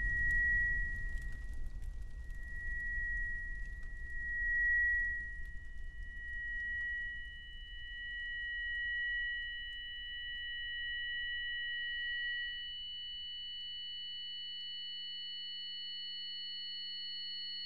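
A steady high-pitched ringing tone, the film's effect of ringing ears after a blast, over a low muffled rumble that fades away. More steady tones join the ringing from about six seconds in, making a thin chord.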